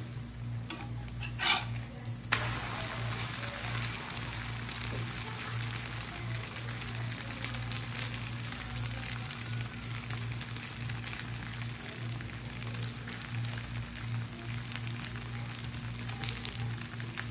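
A rava dosa frying in a hot pan just after being turned over: a brief spatula sound about a second and a half in, then a steady crackling sizzle that starts suddenly just after two seconds in. A constant low hum runs underneath.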